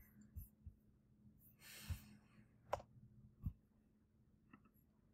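Near silence, broken by a soft breathy sigh about two seconds in and a few faint clicks and light knocks.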